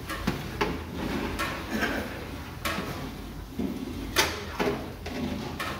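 A long metal stirring paddle scraping and knocking against the side of a large aluminium cooking pot, with several irregular clanks, the sharpest a little past halfway, over a steady low kitchen hum.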